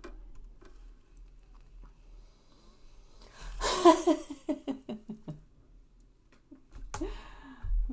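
A person's loud, voiced breath about three and a half seconds in, with a falling pitch, lasting about two seconds.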